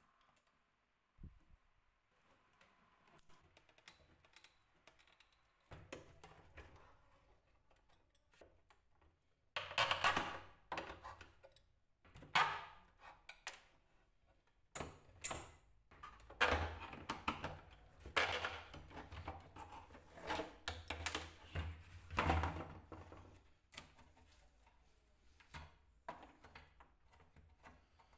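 Hand tools working on an old wooden suitcase's metal fittings and wood: irregular clusters of sharp clicks, scrapes and small knocks, busiest in the second half.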